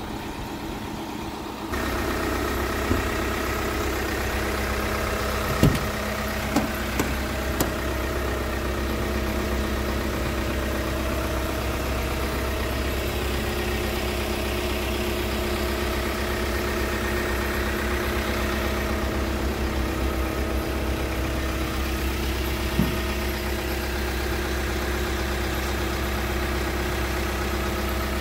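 Scania R450's 13-litre straight-six diesel idling steadily, becoming louder about two seconds in. A few short knocks sound over it, several between about six and eight seconds in and one more later.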